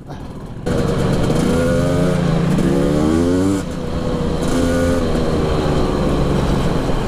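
Husqvarna TE300i two-stroke enduro engine under throttle on the move. It opens up under a second in, rises then falls in pitch over a second or so, eases off briefly and then pulls steadily.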